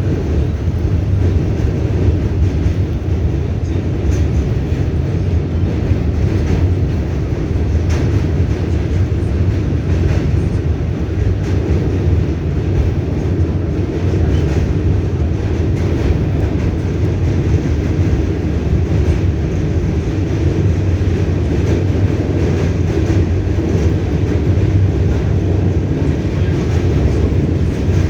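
R68A New York City subway car running at speed, heard from on board: a steady low rumble of wheels on rails, with occasional faint clicks.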